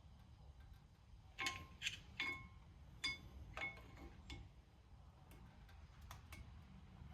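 Metal tool clinking against a brake caliper while the pistons are being pushed back: a string of sharp, ringing metallic clicks, the loudest about one and a half to two and a half seconds in.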